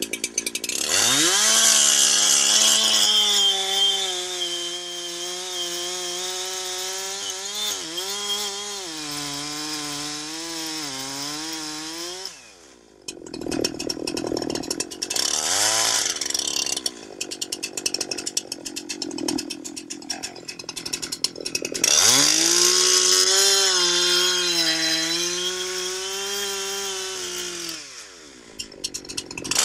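Two-stroke chainsaw revved to full throttle and cutting into a standing tree trunk, its engine pitch wavering and sagging under load while it cuts the face notch. It drops back to a lower idle about twelve seconds in, then revs up and cuts again from about twenty-two seconds until near the end.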